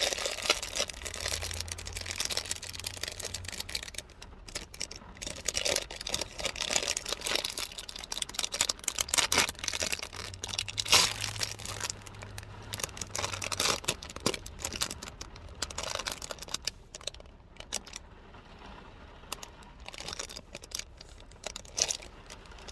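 Crinkly plastic packaging of a Halloween fake-blood bag being handled and torn open, in irregular crackles and rustles.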